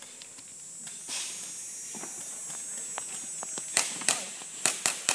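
Airsoft pistols firing: a few faint distant shots, then five loud sharp cracks in quick succession in the last second and a half.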